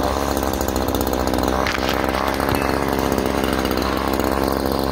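Echo CS-3510 two-stroke gas chainsaw running steadily at full throttle while cutting through a bush.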